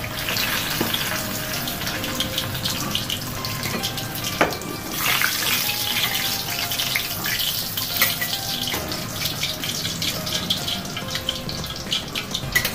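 Hot oil sizzling and crackling steadily as potato samosas deep-fry in a wok, with a couple of sharp knocks of the metal slotted spoon against the pan as they are lifted out.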